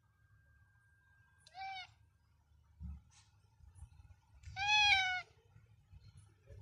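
Sphynx cat meowing twice: a short falling meow about a second and a half in, and a longer, louder meow that rises and falls near the end. A soft thump comes between them.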